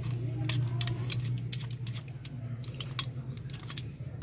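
Light, irregular clicks and taps of hand tools on metal while a fastener on a clutch master cylinder is worked loose, over a steady low hum.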